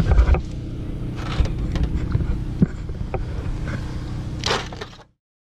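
Handling bumps and rubbing on a GoPro camera's microphone as a child holds it close, over a steady low hum. The sound cuts off about five seconds in.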